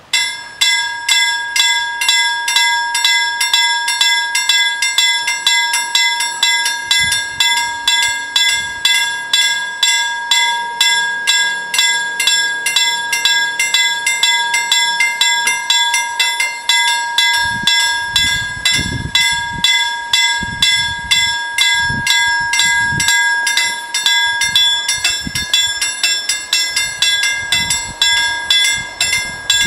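Level-crossing warning bells start ringing suddenly and keep up a loud, rapid, evenly repeated clanging: the crossing's warning that a train is approaching.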